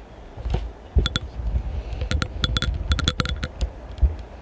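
Light metallic clinking and jingling: a quick run of small sharp clinks, each ringing briefly, over low thumps and rumble of handling.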